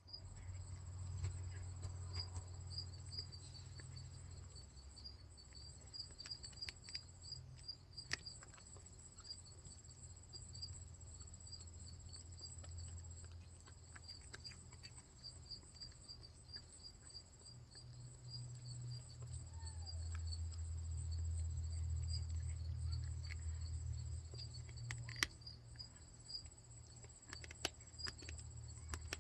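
A cat biting and chewing on its claws: sharp crunchy clicks scattered through, over a steady high-pitched pulsing chirp and a low rumble in the background.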